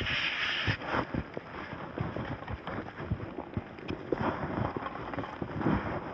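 Footsteps crunching in deep snow as a hiker walks uphill, in irregular crunches with a brief hiss in the first second.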